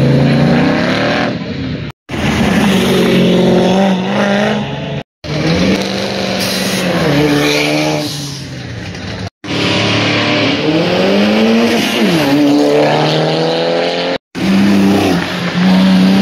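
Car engines revving and accelerating hard, their exhaust pitch climbing and dropping, in several short stretches that cut off abruptly one after another.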